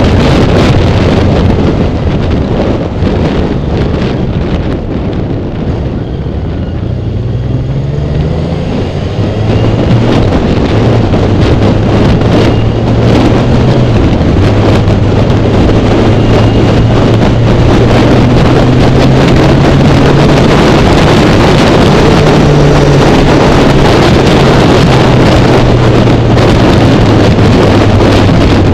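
Wind buffeting the microphone of a moving motorcycle, over the Kawasaki Ninja 1000's inline-four engine running at road speed. The engine eases off for a few seconds, then rises in pitch as it accelerates about eight seconds in, and holds a steady pull after that.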